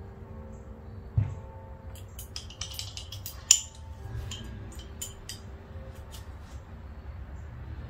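Metal tool clicks and clinks as a wrench is handled against a motorcycle handlebar and grip, with a dull thump about a second in and a sharp click about three and a half seconds in, over a faint steady hum.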